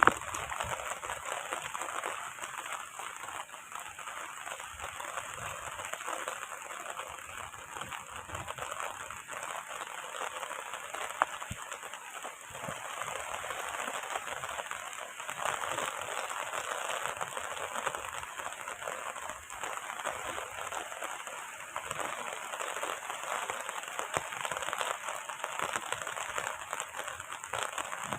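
Heavy rain falling steadily, a dense patter of drops with one sharper tick about eleven seconds in.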